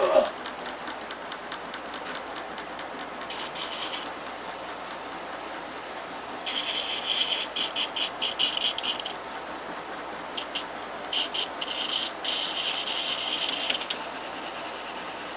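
Aerosol can of wood sealer rattling as it is shaken, then sprayed on in several hissing bursts of one to three seconds each.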